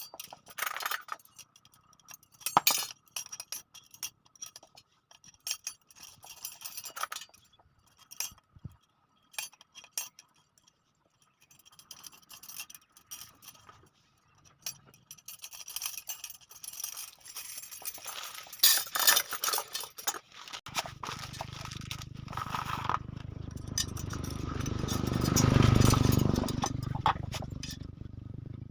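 Steel spokes and metal wheel parts clinking and scraping in scattered sharp clicks as they are handled while a new spoked motorcycle wheel is built. In the last third a low rumble swells up and fades away again.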